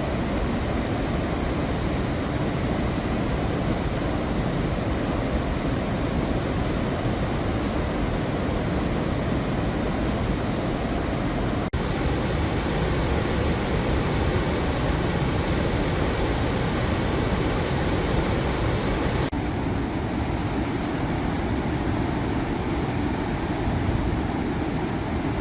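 Steady, loud rush of swollen Chenab River floodwater released from the opened dam gates, with no pauses; its character changes abruptly twice, about twelve and nineteen seconds in.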